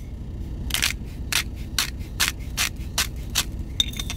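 Himalayan pink salt grinder being twisted, grinding salt crystals in a quick run of about ten gritty rasps. A few small clicks follow near the end as the grinder is handled.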